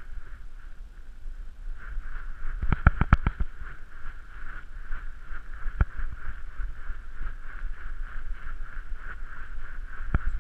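Handling noise from a camera worn by a running dog: low rumble with sharp knocks as the mount jostles, a quick run of them about three seconds in and single ones later, over a steady high-pitched hum.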